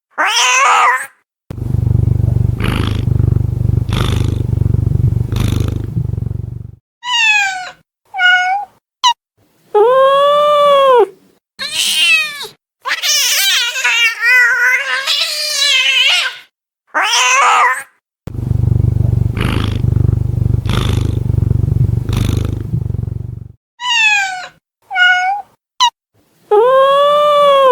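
A frightened domestic cat growling low for several seconds, then giving short meows, long arching yowls and a harsh, wavering screech. The growl-then-yowl sequence comes round twice.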